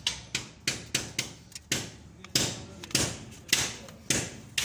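Quick series of sharp knocks at uneven intervals, about two or three a second, each ringing briefly, like hammer blows on metal during engine repair work.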